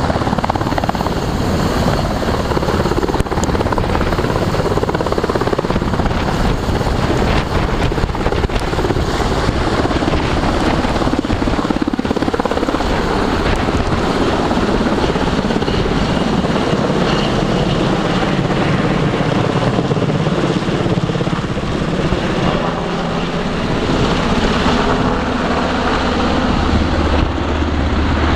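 Military helicopter lifting off and climbing away, its rotor and turbine noise loud and steady throughout. A deep low rumble comes in near the end.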